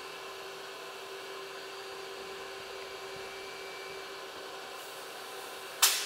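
Bead-blasting cabinet running: a steady hiss of compressed-air blasting over a motor hum, with a short, louder burst of hiss near the end.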